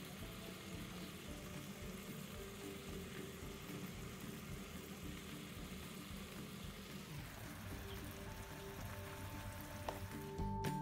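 Brown sugar syrup sizzling quietly around sweet potato slices in a stainless steel Saladmaster pan as the sugar caramelises, with soft background music over it. A sharp knock comes near the end.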